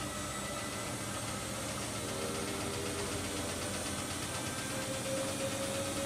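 Siemens Siwamat IQ 716 and Bosch Aquasensor WFP3231 front-loading washing machines running side by side: a steady motor hum and drum noise, with a motor whine that grows stronger in the last second or two.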